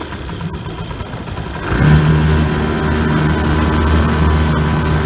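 Hangkai 3.5 HP outboard motor running; about two seconds in it gets abruptly louder and settles into a steady, even engine note.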